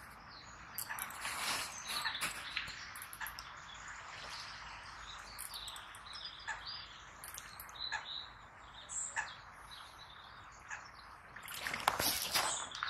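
Small birds chirping and singing, with scattered short clicks and a louder run of clicks near the end.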